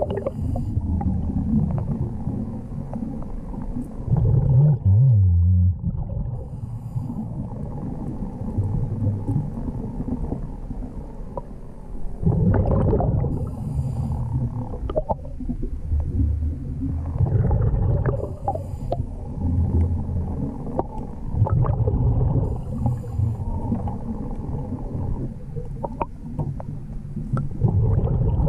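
Underwater sound of a scuba diver breathing through a regulator, with gurgling bursts of exhaled bubbles every few seconds over a steady low rumble.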